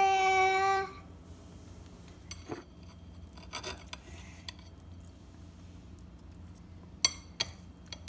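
A child sings a held note for about a second, then a steel knife clinks lightly against a ceramic plate a few times while cutting a small cheesecake, with one sharper clink near the end.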